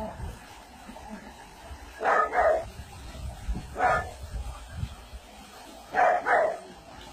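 A dog barking in short groups: two barks, then one, then two more.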